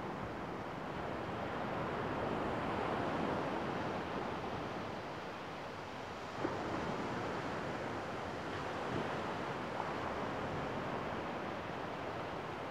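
Gentle surf washing on a sandy shore, a steady rushing noise that swells and eases slowly, with some wind on the microphone.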